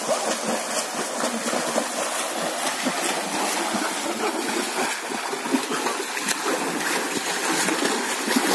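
Several swimmers splashing across a pool, arms and kicking feet beating the water: a steady wash of splashing with many small slaps.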